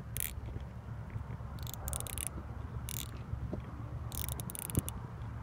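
Fishing reel's drag ratcheting in several short, irregular bursts as a hooked carp takes line, the longest run a little after four seconds in, over low wind rumble on the microphone.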